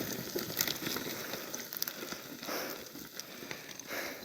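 A cut tree sliding and tumbling down a steep, dry slope: branches crackling and snapping and debris clattering in an irregular string, fading as it falls away.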